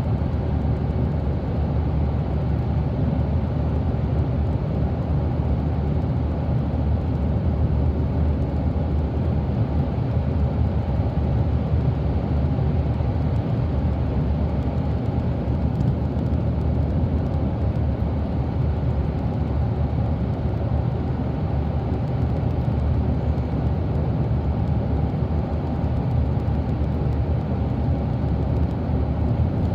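Volvo 8500 articulated bus cruising at highway speed, heard from inside the passenger cabin: a steady low drone of engine and tyre noise.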